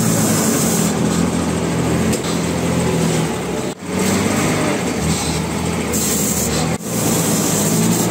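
Engine of a 6x6 M35A2 army truck running steadily as the truck creeps through a tight street, with two brief sudden drop-outs where the footage is cut.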